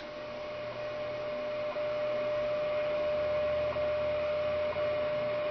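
Shortwave time-signal station coming through a Philco 38-7XX console radio at full volume: a steady whistle tone with a faint tick about once a second, over static hiss, slowly growing louder.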